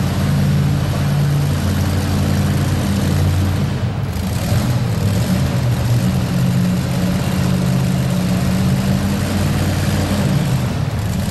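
Supercharged engine of a two-wheel-drive pulling truck idling steadily, a loud low rumble.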